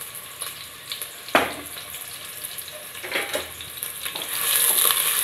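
Chopped onions frying in hot refined oil, a steady sizzle that grows louder about four seconds in. A few short knocks come through the sizzle, around one second in and again around three seconds.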